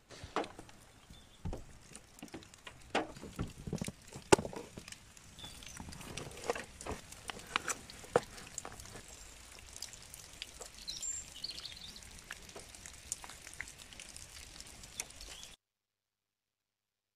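Raindrops tapping irregularly on the car roof, heard from inside the car, with a few louder single drops among them; it cuts off abruptly near the end.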